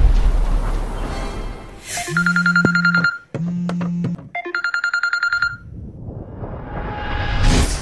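Smartphone sounding an alert: two bursts of rapid, evenly pulsed electronic beeps over a low vibrating buzz, between a low whoosh at the start and a rising whoosh near the end.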